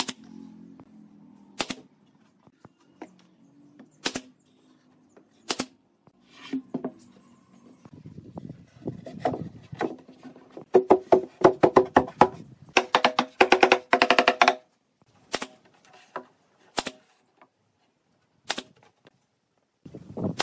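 Pneumatic brad nailer firing single shots into pine boards, sharp cracks one every second or two. In the middle comes a run of loud, rapid knocks with a ringing tone, lasting about four seconds.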